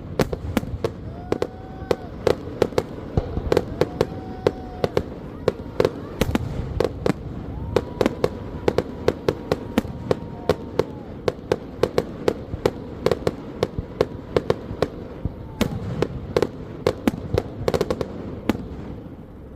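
Fireworks display: a dense run of sharp bangs and cracks, several a second, over a continuous low rumble of bursts.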